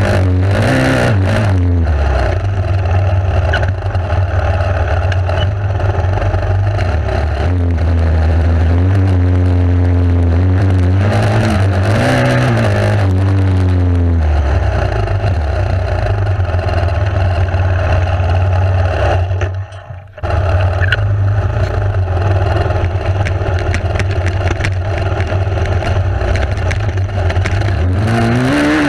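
Enduro motorcycle engine running under load off-road, its pitch rising and falling as the throttle opens and closes. There is a steady noisy haze over the engine note, and the sound drops out briefly about two-thirds of the way through.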